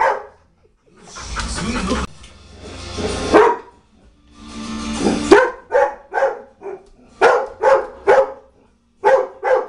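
A pet dog barking at a china cabinet: a bark about three and a half seconds in, then a fast run of about eight short, sharp barks in the second half. Before the barks there are stretches of rough rushing noise.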